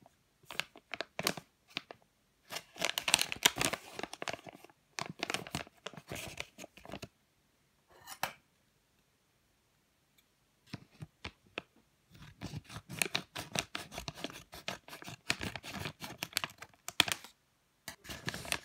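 Plastic toy packaging crinkling and tearing as a blind bag is opened and a squishy is worked out of its clear plastic inner wrapper, in bursts of rustling with a quiet gap of a few seconds in the middle.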